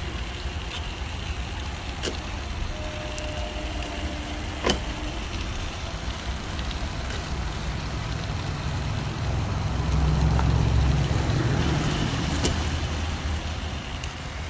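Low engine rumble from a slow-rolling three-wheeled motorcycle, swelling louder for a few seconds past the middle. A single sharp click sounds a few seconds in.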